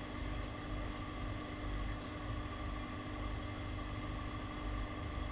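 Steady machine hum with several held tones over a low rumble, typical of an air conditioner or fan running in the room.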